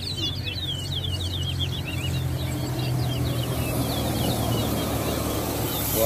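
Towa-towa (large-billed seed finch) song: quick chirps and trills, densest in the first second and fainter after. Under it, a low engine drone swells and holds until near the end.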